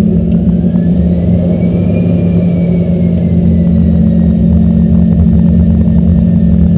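Embraer ERJ-145's Rolls-Royce AE 3007 turbofan engines heard inside the cabin: a loud, steady low hum with a fainter whine that rises over the first two seconds and then slowly falls.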